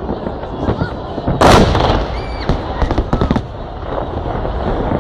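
Fireworks salute going off: a continuous run of booms and crackles, with one loud burst about a second and a half in. A short voice-like cry rises and falls just after the loud burst.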